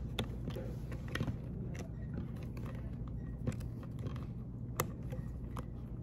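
Scattered light clicks and rustling of hands handling a LEGO robot, plastic parts and cables being pushed into place, over a steady low room hum.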